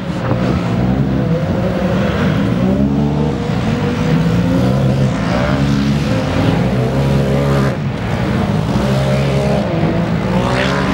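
Engines of side-by-side (UTV) race vehicles running hard on a dirt track, revving up and down as the drivers go on and off the throttle.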